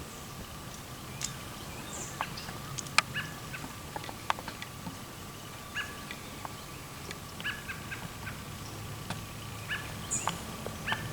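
Wild birds calling: many short, sharp chips and clucks scattered irregularly, with a couple of brief high chirps.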